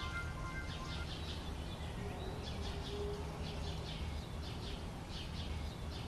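Birds chirping in quick repeated high calls over a steady low rumble of wind or distant noise; the last held notes of a music track end about a second in.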